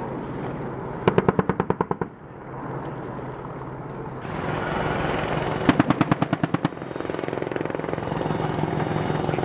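AH-64 Apache's 30 mm chain gun firing two short bursts, about a second each at roughly ten rounds a second, the second burst some four seconds after the first. Underneath runs the helicopter's steady rotor and engine noise, which grows louder about four seconds in.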